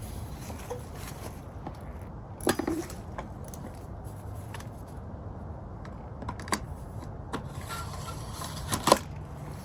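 A few scattered clicks and metallic clunks from handling the e-bike and its battery, over a low steady hum; the loudest clunk comes near the end.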